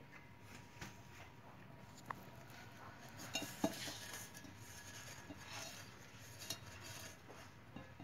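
Faint metallic clinks and scrapes from handling the opened steel shell of a refrigerator compressor, with the rub of a cloth wiping its inside; the loudest clink comes about three and a half seconds in.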